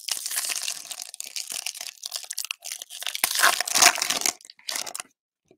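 Foil wrapper of a Panini Select football card pack being torn open and crumpled as the cards are pulled out: continuous crinkling and tearing, loudest about three and a half seconds in, stopping shortly before the end.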